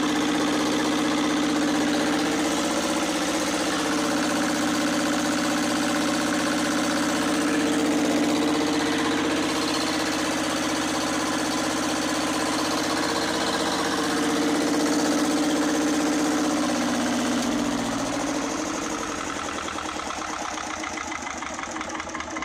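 Lister ST2 two-cylinder air-cooled diesel running with its rocker covers off, rough, with 'phlegm in her throat' after its fuel system was bled. About eighteen seconds in the steady running breaks up into slower, separate beats and the sound falls away as the engine slows down.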